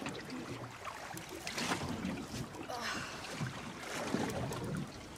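Sea water lapping and splashing against the side of a drifting boat, with a couple of louder splashes partway through.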